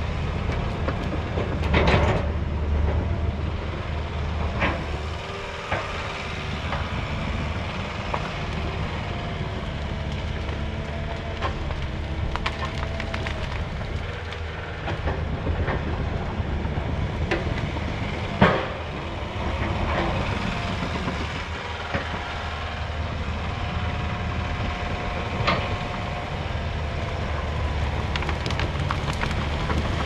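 Diesel engine of a crawler dozer running steadily as it pushes brush, with scattered cracks and snaps of breaking wood, the loudest about 18 seconds in. A wavering squeal comes and goes.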